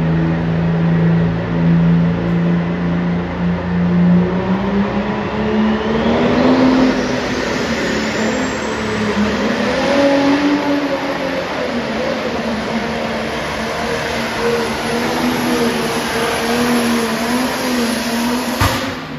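Turbocharged pulling tractor engine revving hard at the start line. Its note climbs about four seconds in while a turbo whine rises steeply to a high scream, then holds with the pitch wavering. The sound breaks off with a click near the end.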